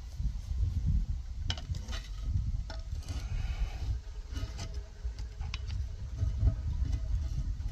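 Metal manhole lifting keys clinking against a cast-iron inspection cover as they are brought to its keyholes, several sharp metallic clicks, over a continuous low rumble.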